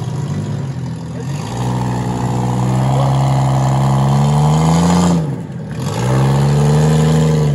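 Off-road 4x4's engine revved hard under load, its pitch climbing steadily, dropping off briefly about five seconds in, then climbing again.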